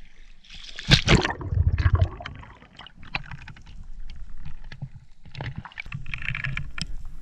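A splash about a second in as a spearfisher dives under, then underwater water movement and gurgling with scattered sharp clicks while the speargun's rubber bands are loaded.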